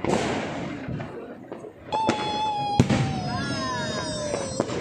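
Aerial fireworks bursting overhead: a sudden crackling burst at the start that dies away over about a second, then a sharp bang near the three-second mark. From about two seconds in, a long whistling tone slowly falls in pitch until just before the end.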